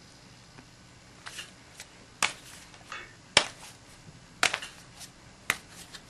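A string of short, sharp clicks and knocks, about eight of them at uneven intervals, the loudest just past halfway.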